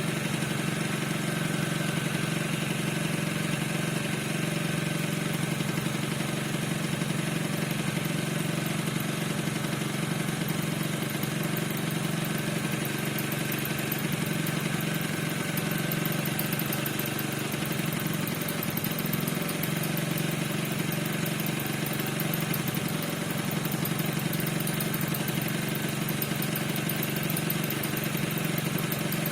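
Piaggio NRG 50 scooter's two-stroke engine idling steadily with a squeak, whose cause the owner does not know.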